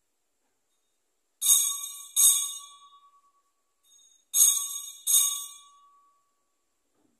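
Altar bells, a cluster of small hand bells, rung at the elevation of the chalice after the consecration. There are four bright shakes in two pairs, each ringing and dying away over about a second, with a faint tinkle between the pairs.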